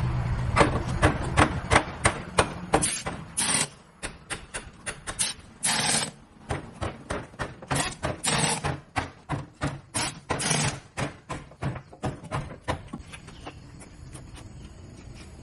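A long run of sharp knocks, about three a second, with a few short hissing bursts among them, dying away near the end.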